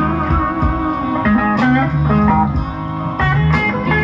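Live slow blues with no singing: an electric guitar plays a fill of held, bent notes over bass and drums.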